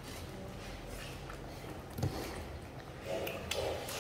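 Wet chewing and smacking of pets eating watermelon, with scattered small clicks and a thump about two seconds in.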